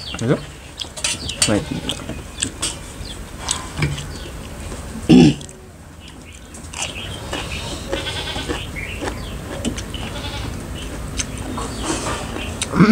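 A goat bleating several times, the loudest call about five seconds in and another near the end, over the small wet clicks of people chewing and eating by hand.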